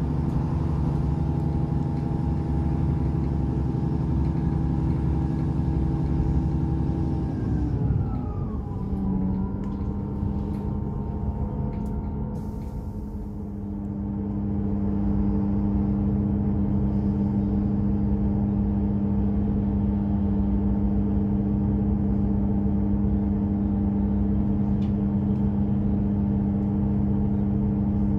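Diesel multiple unit heard from inside the carriage: the engine and transmission run steadily, then their pitch falls away about eight seconds in as the train slows to a stand at a station. After that a diesel engine idles with a steady hum.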